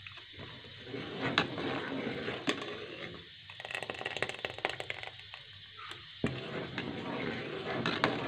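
Metal ladle stirring and scraping thick kheer against the side and bottom of a metal cooking pot, a ragged scraping with many small clicks and two brief pauses.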